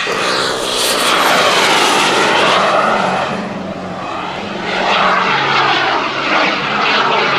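Turbine engines of a large radio-controlled A-10 Warthog model jet passing overhead, a loud jet rush with a thin high turbine whine that drops in pitch as the jet goes by. The rush swells twice, around the first and the last few seconds.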